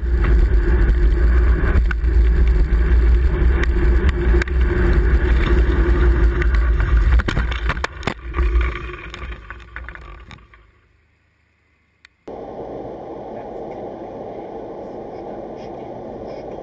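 Heavy wind buffeting on a bicycle-mounted camera while riding, then a cluster of knocks and scrapes about eight seconds in as the bike collides with a vehicle and the camera tumbles, dying away to near silence. About twelve seconds in it gives way to steady road and engine noise inside a car.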